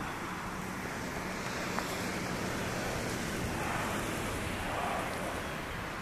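Wind rushing steadily on the microphone, with a faint low steady hum beneath it.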